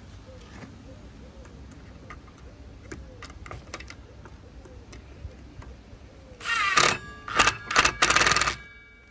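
Cordless screwdriver driving a screw into a circular saw's dust-port connector: its motor whines in four short bursts, one longer run then three quick ones, snugging the screw tight. Small clicks of handling before the driver starts.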